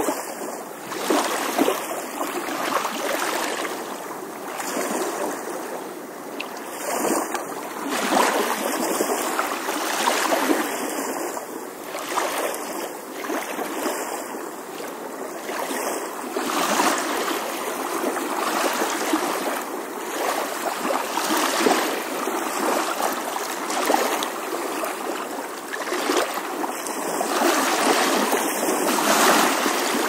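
Gentle ocean waves washing and lapping on the shore: a steady watery rush that swells and eases every few seconds, with brief splashes.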